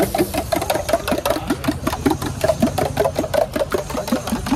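Spoon beating eggs and gravy in a steel tumbler for a kalaki omelet: quick, even strokes, several a second, each a metal clink with a short slosh of liquid, over a steady low hum.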